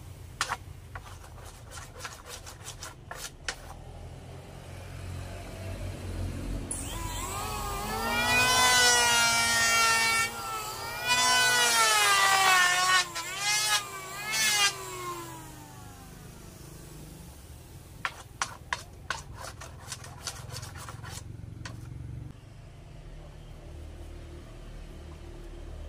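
Electric hand planer shaving a wide glued-up wooden panel, its motor pitch sagging and recovering as the blades bite into the wood. It is loudest from about 7 to 15 seconds in. Sharp clicks come near the start and again about 18 to 21 seconds in.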